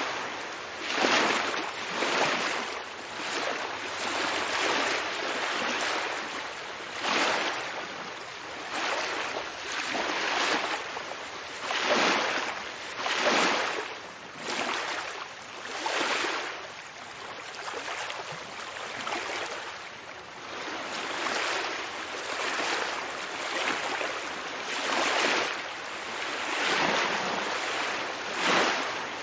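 Ocean waves washing and lapping, swelling and falling away in repeated surges every second or two.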